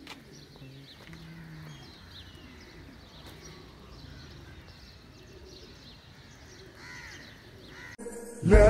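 Faint outdoor morning ambience with scattered small bird chirps and calls, and a brief low drawn-out tone about a second in. Loud background music comes in suddenly near the end.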